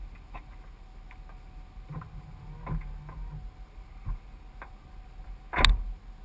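Scattered faint ticks and clicks over a low steady hum, with one loud sharp knock about five and a half seconds in.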